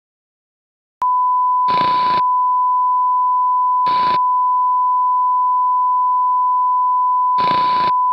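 A steady, loud electronic beep tone, one pure unchanging pitch like a test tone, cuts in suddenly about a second in after silence. Three short bursts of hiss-like noise break over it, at about two, four and seven and a half seconds in.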